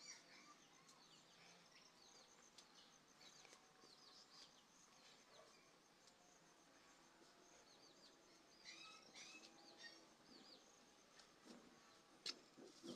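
Faint birds chirping, with short rising and falling calls that come thickest about two-thirds of the way in, over a high, fast, evenly pulsing trill.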